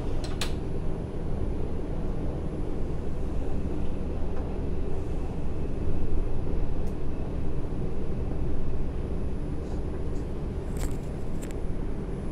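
Inside an R142 subway car running through the tunnel: a steady low rumble of wheels and motors, with a few sharp clicks about half a second in and twice near the end.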